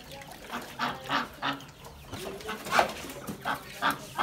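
Farmyard poultry calling in a run of short repeated calls, about two or three a second, louder from about two seconds in.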